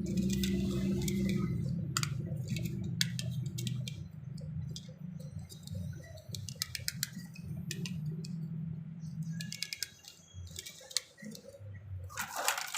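Scattered clicks and light taps of small die-cast toy cars and their plastic packaging being handled, over a steady low hum. The clicks thin out in the last few seconds.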